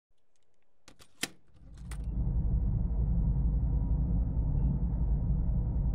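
Spaceship-interior ambience from a film soundtrack: a few sharp clicks, then a steady low machinery rumble that swells in about two seconds in and holds, with a faint short beep later on.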